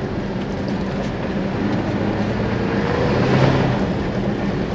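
Chevy Colorado ZR2 pickup's 2.7-litre turbocharged four-cylinder engine running at raised revs in Baja mode while driving fast on a dirt road, with steady tyre and road noise. The engine swells briefly about three seconds in.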